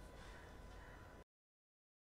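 Near silence: faint room tone that cuts off to dead silence a little over a second in.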